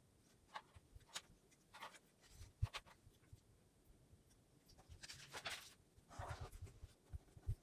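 Pen drawing on paper in short scratchy strokes, with a soft thump about two and a half seconds in and a longer rasp around five seconds in.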